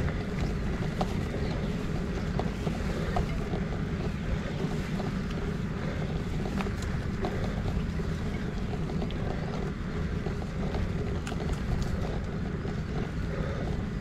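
Wind buffeting a GoPro Hero8's microphone while a gravel bike rides along, mixed with the rolling noise of its tyres on gravel and scattered small clicks and rattles.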